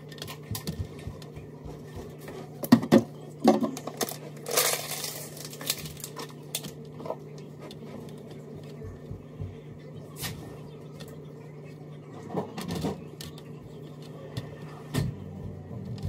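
Hands rolling crescent-roll dough on a metal baking sheet: scattered light taps and knocks against the pan, the sharpest a few seconds in, with a brief rustle about four and a half seconds in. A steady low electrical hum runs underneath.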